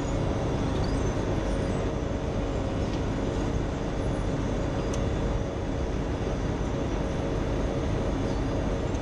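Wirtgen asphalt milling machine running at work, a steady mechanical drone of its diesel engine and cutting drum as it scrapes off an asphalt dike, with a steady tone through it.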